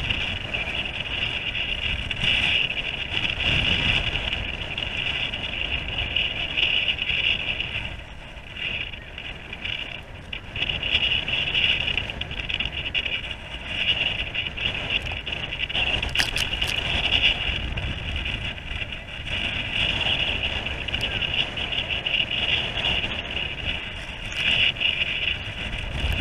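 Wind buffeting the camera microphone in gusts, with water rushing and splashing against a wooden sea kayak's hull as it is paddled through choppy, wind-driven waves.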